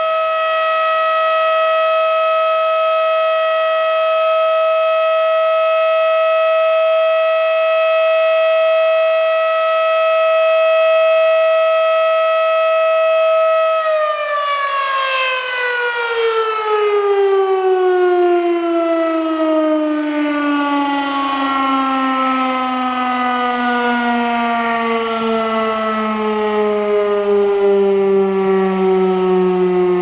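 Federal Signal Model 7B siren sounding a steady alert tone of about 640 Hz. About 14 seconds in it cuts off and winds down, its pitch falling smoothly and steadily as the rotor coasts to a stop.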